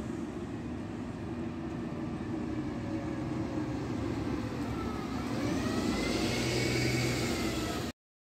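City bus driving past close by: engine and drivetrain running, growing louder as it passes, with a whine that dips and then rises in pitch. The sound cuts off abruptly near the end.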